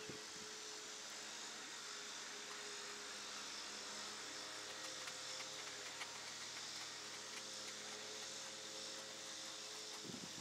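A steady hum of several pitches over a faint hiss, with one of its tones shifting slightly about four seconds in.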